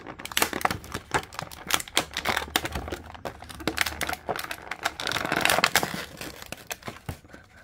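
Plastic packaging of a boxed action figure crinkling and rustling with many small clicks and snaps as the figure is worked out of it, with a louder stretch of crinkling about five seconds in.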